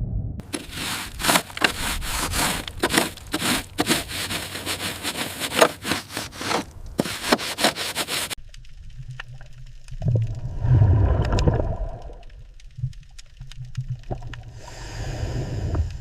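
Harsh scraping with many sharp crackles for about eight seconds, cutting off suddenly, then a low rumble that swells briefly about ten seconds in, with scattered clicks.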